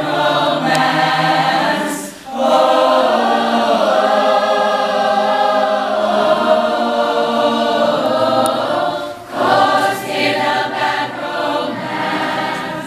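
School choir of boys and girls singing together in harmony, holding long sustained notes, with two brief breaks between phrases.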